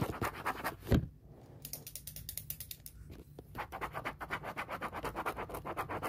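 Stylus tip tapping quickly on a smartphone's glass touchscreen, a fast, even run of light ticks, about ten a second, with a duller knock about a second in.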